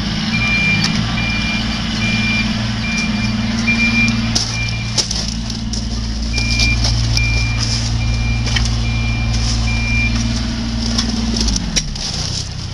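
A construction machine's engine running while its backup alarm beeps about one and a half times a second, in two runs. There are scattered clanks, and about eleven seconds in the engine winds down.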